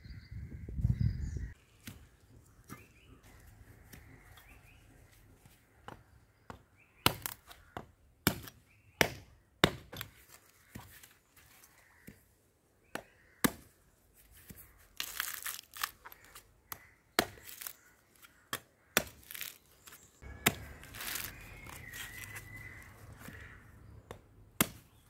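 Curved machete chopping into a dry coconut's fibrous husk: sharp, irregular blows starting several seconds in, with two longer rasping tears as strips of husk are ripped away.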